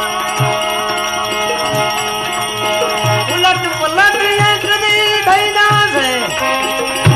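Devotional bhajan music: a steady drone with low drum strokes about once a second, joined about three seconds in by a melody of held notes that slide up and down.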